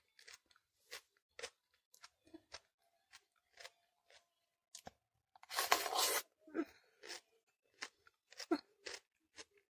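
Raw yellow bell pepper being chewed: irregular crisp crunches, with a louder stretch of crunching about halfway through.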